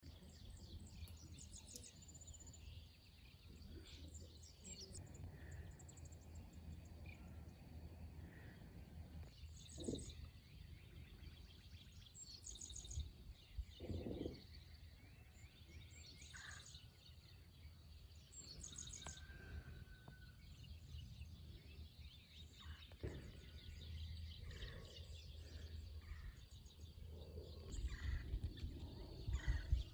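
Birds chirping and calling outdoors in short, repeated high phrases, over a faint steady low rumble. A few soft knocks stand out, about ten and fourteen seconds in and near the end.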